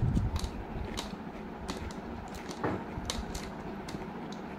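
Eating by hand: fingers mixing rice and snail curry on a brass plate, with scattered small clicks of the snail shells and chewing, and a low thump right at the start.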